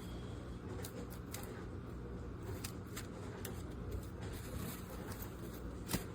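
Cardboard shipping box being handled: scattered small clicks and rustles, with one sharper click near the end, over a steady low hum.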